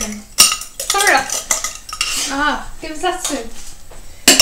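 A metal spoon stirring and clinking in a plastic measuring jug of runny meringue mixture, with two sharp knocks, about half a second in and near the end.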